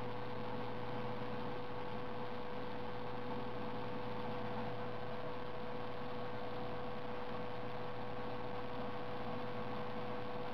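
Steady electrical hum with a faint even hiss, unchanging throughout.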